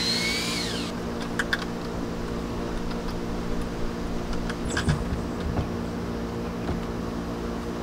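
A cordless drill whirs briefly and winds down about a second in. Then come scattered light clicks and knocks as a wooden ramp is handled and set against the coop door, over a steady background hum.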